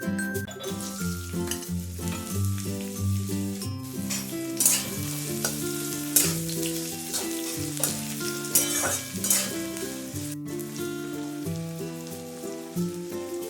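Food sizzling in hot oil in a pan while being stirred, with louder crackling flares now and then. Background music plays underneath.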